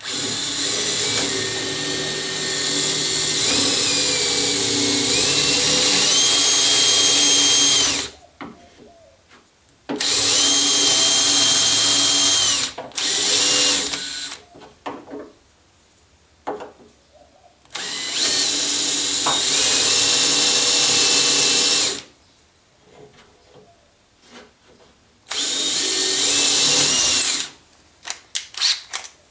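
Cordless drill boring a 3/8-inch hole through a plywood plate, in four runs of several seconds each with short pauses between; its whine steps up and down in pitch as it cuts. A few light clicks near the end.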